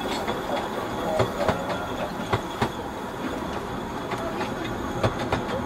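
A 15-inch narrow-gauge train running along the track: irregular sharp clicks of wheels over rail joints over a steady rumble, with a faint high steady squeal from the wheels.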